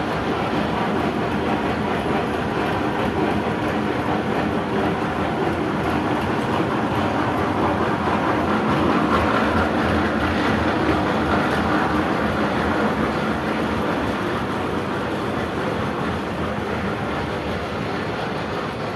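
Tractor engine running steadily with a continuous metallic rattle from the chain trencher hitched to it, swelling a little midway.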